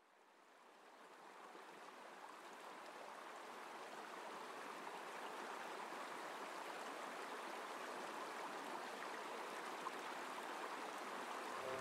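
A steady rushing noise of running water, fading in from silence over the first few seconds and then holding even. Soft music comes in at the very end.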